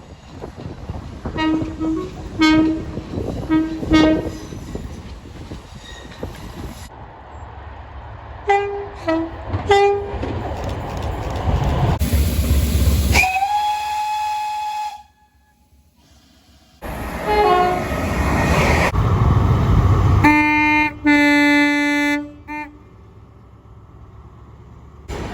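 Train horns sounding over the rumble of passing trains, in a run of short clips that change abruptly: groups of short blasts early on and in the middle, one longer held note, and two long blasts near the end.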